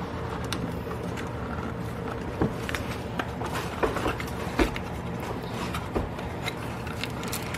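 Small cardboard advent-calendar box handled by hand: scattered light taps, scrapes and clicks of cardboard as a little drawer box is pulled out and its lid lifted, over a steady low hum.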